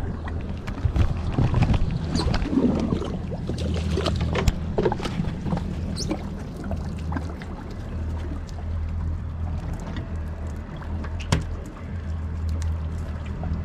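Twin Mercury Verado V8 outboards idling with a steady low hum, under the knocks and clatter of gear being handled on the boat's deck, busiest in the first few seconds, with one sharp knock near the end.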